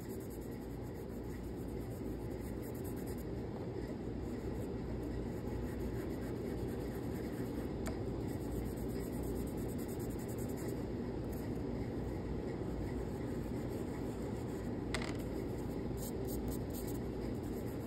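Chalk pastel and fingertips rubbing steadily on paper as a candle shape is coloured in blue and blended.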